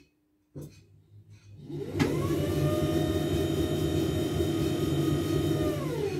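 Reconditioned JW Ratcliffe electric pottery wheel motor run up on the foot-pedal speed control: a low hum builds, a click about two seconds in, then a steady whine at speed that falls in pitch near the end as the wheel slows.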